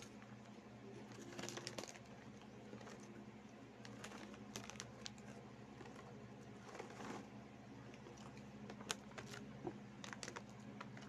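Crunchy corn snacks being chewed, with scattered sharp crunches, and a plastic snack bag crinkling in short bursts as it is handled.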